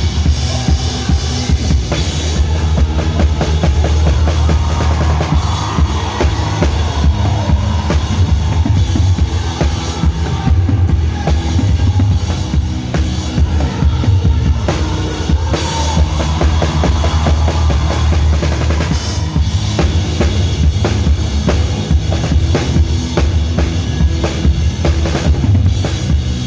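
Live band music with the drum kit loud in the mix: kick drum and snare keeping a steady beat over a heavy bass line.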